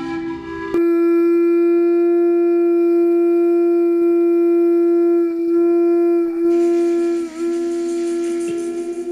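A single long note blown on a wind instrument, held loud and steady for several seconds, then dipping briefly in pitch a couple of times near the end, as part of the opening music.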